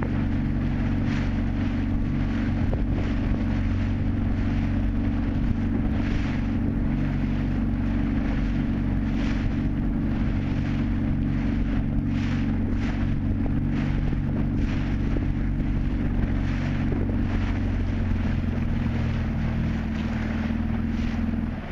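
Small motorboat's outboard motor running at a steady speed, with wind buffeting the microphone and water splashing against the hull. The engine note shifts slightly near the end.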